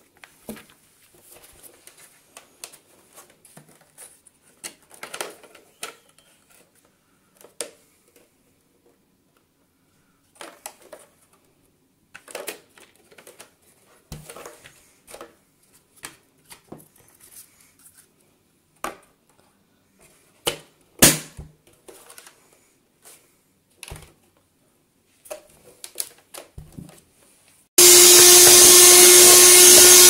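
Paper rustling and scattered light clicks and knocks of plastic parts as a handheld car vacuum cleaner's parts and filter are handled. Near the end the LinsnField 12V 150W car vacuum cleaner's motor starts suddenly and runs loud and steady, with a steady whine.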